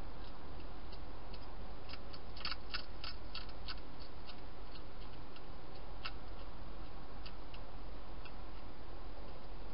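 Wild hedgehog crunching dry food inside a plastic feeding box: irregular sharp clicks, with a quick cluster of them a couple of seconds in, over a steady low hum and hiss.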